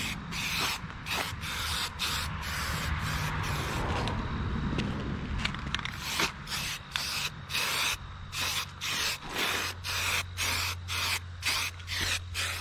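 Aerosol spray paint can spraying in many short hissing bursts, with one longer steady spray a couple of seconds in, while the can is running low on paint.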